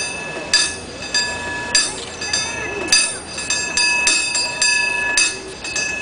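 San Francisco cable car bell rung by pulling its cord, a rapid syncopated rhythm of clangs with long ringing overtones that quickens about halfway through.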